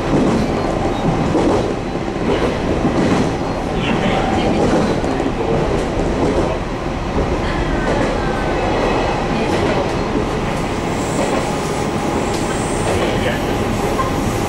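JR Kyushu 813 series electric train running, heard from inside the leading car: a steady rumble of wheels on rail with occasional clicks over rail joints. A faint gliding whine comes in briefly about halfway through.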